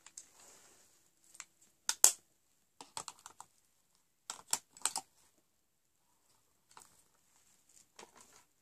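Hands handling makeup packaging: scattered sharp clicks and taps of cardboard and plastic in small clusters, the loudest about two seconds in.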